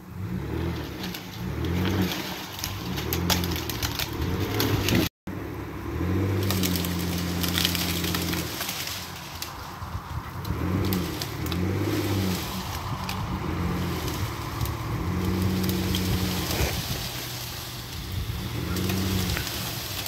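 Wind buffeting the microphone in uneven gusts, a low rumble with crackling rustle over it.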